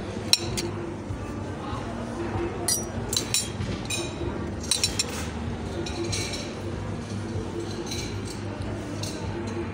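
Metal knife and fork clinking against a ceramic plate: a few sharp clinks in small clusters, over a steady café background hum.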